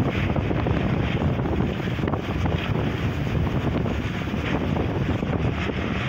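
Wind buffeting the microphone, with a MacDon self-propelled windrower's engine running under it as the machine cuts barley.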